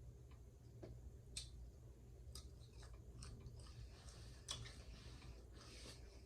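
Quiet chewing close to the microphone: scattered soft mouth clicks and smacks, with a patch of soft hiss about four seconds in, over a faint steady low hum.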